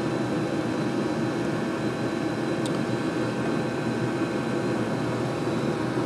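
Diesel air heater running steadily, lit and still heating up: an even rushing hum with several faint steady tones running through it.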